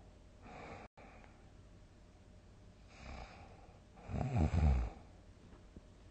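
A sleeping person snoring: a soft breath near the start, a fainter one about three seconds in, then a loud, low snore lasting about a second.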